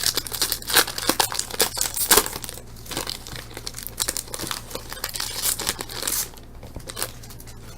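Wrapper of a hockey card pack being torn open and crinkled, a dense crackling rustle that dies down about six seconds in.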